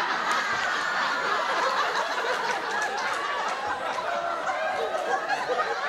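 Theatre audience laughing steadily together, many voices at once, in response to a comedian's punchline.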